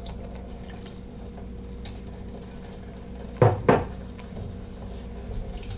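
Two quick hard kitchen clunks about a quarter second apart, about three and a half seconds in, over a steady low hum.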